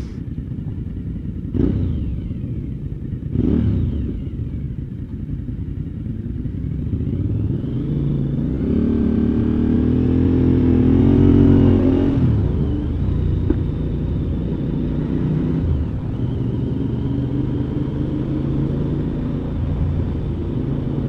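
A motorcycle engine running while riding. It starts with three short knocks, then the revs climb steadily for a few seconds before falling back, and it settles to a steady run near the end.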